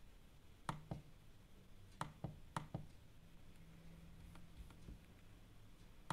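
Computer mouse clicking: three quick pairs of faint, sharp clicks in the first three seconds, then one more near the end, as a document is scrolled.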